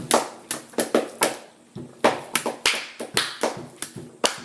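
Hands clapping and tapping out an improvised beat: sharp strikes about three a second, unevenly spaced.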